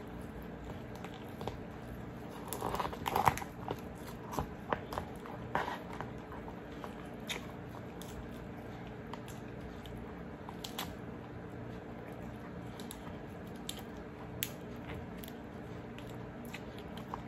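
Cooked Alaskan king crab shell crackling and snapping as it is pulled apart by hand and the meat picked out, busiest from about two and a half to six seconds in, then only occasional small clicks. A faint steady hum runs underneath.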